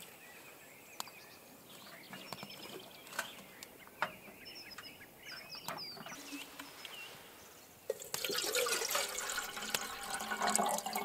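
Faint bird chirps for the first several seconds, then, from about eight seconds in, water poured from a bottle into a small metal kettle on a wood stove, a steady splashing trickle.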